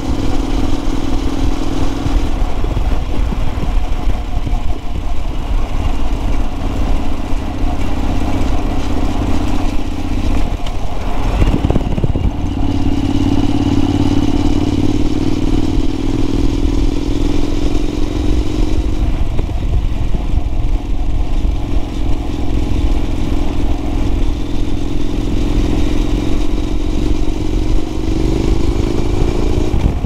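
Honda NC700X's parallel-twin engine running through an MX Moriwaki aftermarket exhaust, heard close to the muffler while riding. The note holds steady, breaks and wavers about eleven seconds in as the revs change, and near the end climbs with the revs and then drops suddenly.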